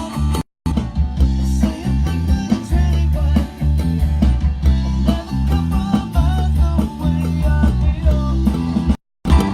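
Rock music with guitar over a heavy bass and a steady beat, dropping out to silence for a moment twice, about half a second in and near the end.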